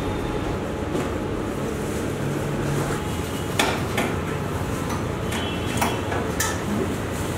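Commercial kitchen clatter: a few sharp clinks and knocks, like utensils and dishes, about three and a half seconds in and again near six seconds, over a steady kitchen background noise.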